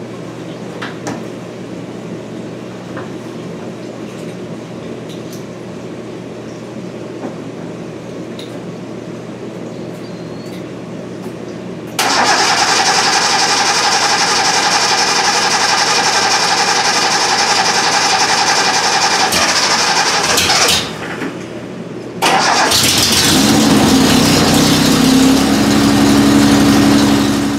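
A 1971 Datsun 240Z's straight-six is cranked on its starter for about nine seconds without catching. After a short pause it is cranked again until it fires, rising in pitch as it catches, then runs steadily. Before the cranking there is a steady low hum.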